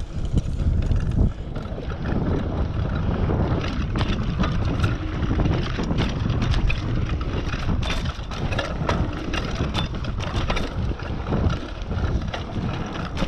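Wind buffeting a GoPro's microphone as a mountain bike rolls fast down a dirt and gravel trail, with a steady rush of tyre noise and frequent sharp clicks and rattles from the bike over the rough ground.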